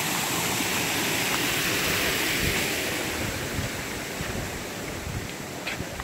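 Creek water rushing over rocks, a steady even rush that fades a little over the second half.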